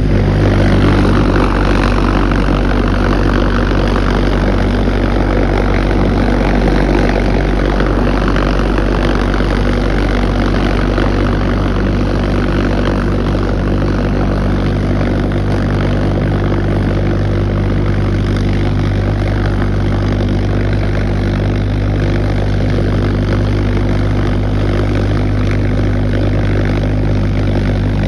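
V-1 pulse jet engine running steadily with a loud, low buzzing drone.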